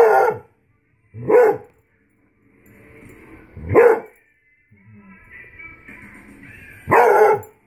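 Beagle hound barking four times, short loud bays spaced a second or more apart, with the last coming near the end.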